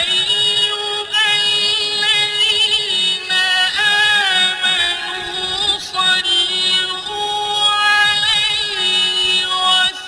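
Background music: a wavering, ornamented melody over a steady held drone note.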